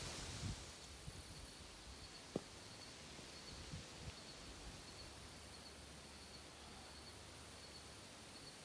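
Faint outdoor ambience with a steady, thin, high insect trill, broken by a few soft knocks.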